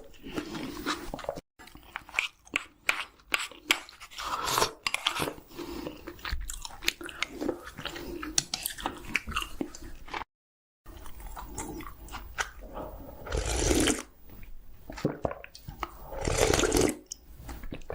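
A person biting into and chewing chicken, with many irregular crisp crunches. The sound cuts out to silence twice, briefly.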